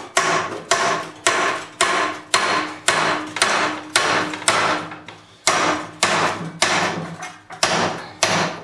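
Hammer blows on a chisel set against the gland nut of a Moffett forklift hydraulic lift cylinder, about two sharp strikes a second with a brief pause midway, each leaving the steel ringing. The blows are driving the gland nut round to loosen it, and it is moving.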